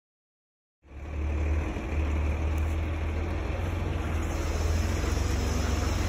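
Truck engine running with a steady low rumble and a hiss over it, cutting in suddenly about a second in.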